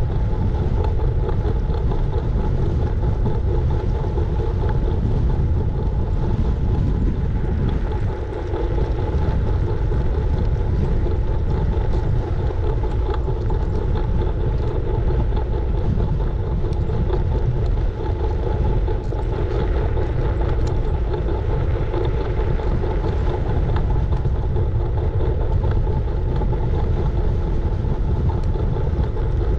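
Scooter riding at steady speed, heard through wind on the microphone: a constant low rumble of wind and road vibration with a steady whine on top, dipping briefly twice.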